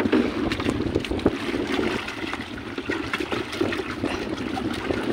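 Water sloshing and splashing in a plastic basin as a hand rummages among freshly caught fish, many short wet splashes, over steady wind buffeting the microphone.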